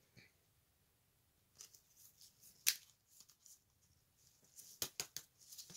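Trading cards being handled on a table: faint rustling with scattered sharp clicks, the loudest about three seconds in and a quick run of clicks near the end.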